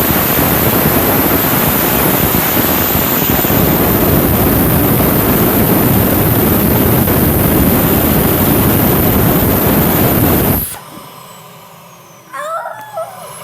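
Vacuum cleaner motor running loud and steady with a high whine. It is switched off about ten and a half seconds in, and the whine falls away as the motor winds down.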